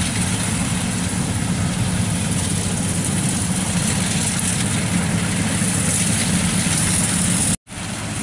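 Kubota DC-95 rice combine harvester running while it cuts rice: a steady diesel engine drone with a constant hiss over it. The sound drops out for a split second near the end and then resumes.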